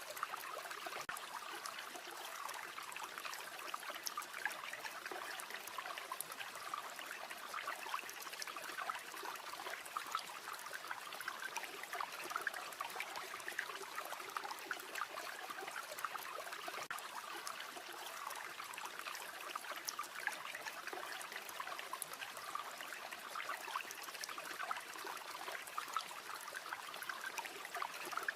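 River flowing steadily, with many small sharp crackles and pops from a campfire scattered over it.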